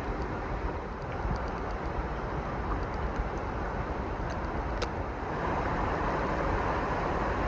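Steady rush of flowing water, growing louder about five seconds in, with a faint sharp click just before.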